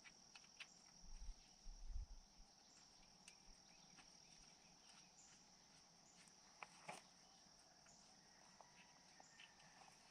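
Near silence: a faint, steady, high-pitched insect trill in the background, with a few faint clicks and light knocks.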